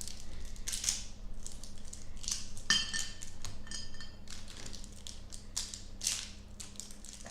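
Hi-Chew candy wrappers crinkling and tearing in short bursts as the candies are unwrapped by hand, with one ringing clink of a dish near the middle.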